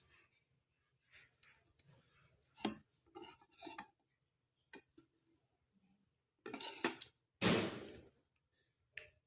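Spoon clinking and knocking against a bowl of meatball soup while eating, as scattered short clicks. Two louder rushing noises come about two-thirds of the way in.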